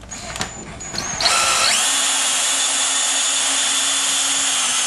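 Cordless drill driving a screw through a door brace's base plate into a wood floor. After a few light clicks, the motor starts about a second in, its whine rising in pitch just after starting. It then runs steadily for about three and a half seconds and stops suddenly.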